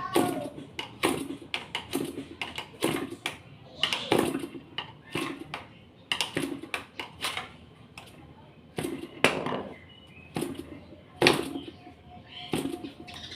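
Small two-stroke engine being cranked over and over with its starter, a short rough stroke about every second, without the engine catching.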